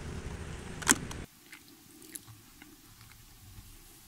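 Faint, crisp crunches of someone biting and chewing raw cabbage. They begin about a second in, after a click and the outdoor background noise cut off suddenly.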